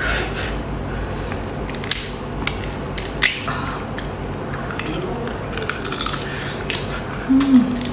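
Close-up eating sounds: scattered crackling crunches and mouth clicks as a large fried prawn is bitten into and chewed, shell and all. A short hummed "mm" comes near the end.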